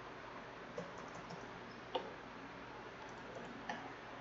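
Three sharp clicks, spaced about a second or more apart, with a few fainter ticks between them, from a computer mouse and keyboard in use, over faint steady hiss.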